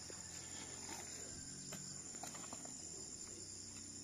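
Faint, steady high-pitched chirring of insects such as crickets, with a few soft, faint knocks.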